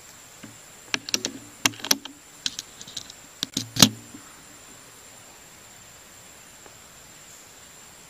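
A quick, uneven series of sharp clicks and knocks, the loudest about four seconds in, from the rifle and its scope-mounted camera being handled and moved.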